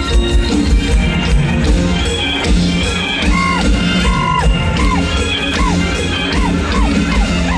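Live Isan band music played loud through a hall PA, with a steady bass-drum beat under held chords. From about three seconds in, a lead line repeats short notes that bend down in pitch.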